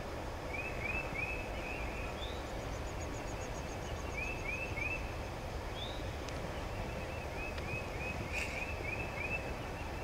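Small songbirds singing in quick runs of three or four repeated chirps, with a brief high fast trill about two seconds in, over a steady low rush of background noise. A light click sounds about eight seconds in.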